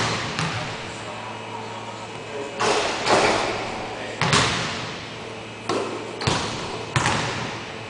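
Basketball thuds on a hardwood gym floor, eight or so at irregular intervals, some in quick pairs, each ringing on in the echo of a large hall.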